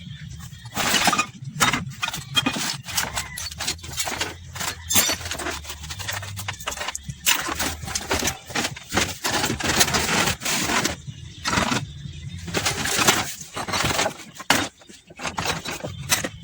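Irregular clatter of knocks, clinks and scraping strokes from metal engine parts being handled and cleaned, over a steady low hum.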